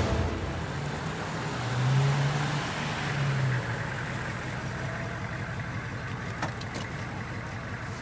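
Mercedes-Benz Vito van driving in with its engine running and tyres on paving, the engine note strongest about two seconds in, then fading as the van rolls to a stop.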